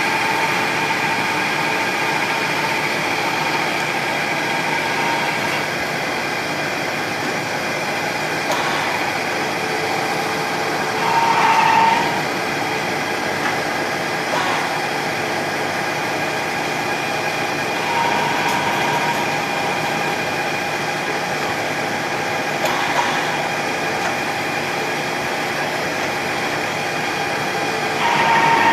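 Metal lathe running steadily with a constant whine, truing up a shift knob that came off the mill wobbly. A louder squeal rises briefly about eleven seconds in and again near the end, likely as the cutting tool bites.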